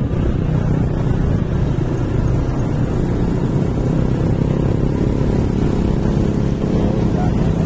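Motorcycle engine running steadily at cruising speed, heard from the moving bike itself, with a constant rush of wind and road noise.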